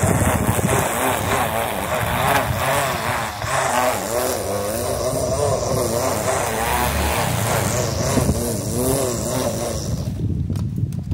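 String trimmer running as it cuts grass, its motor pitch dipping and recovering repeatedly as the line bites into the grass, then shutting off about ten seconds in.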